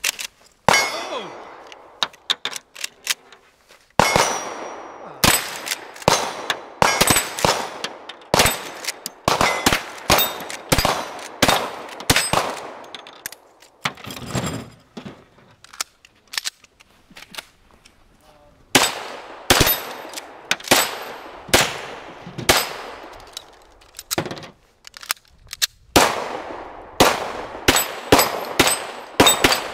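Rapid gunfire from lever-action rifles and pistols: many shots in quick strings with short lulls between, the steel plate targets ringing when hit.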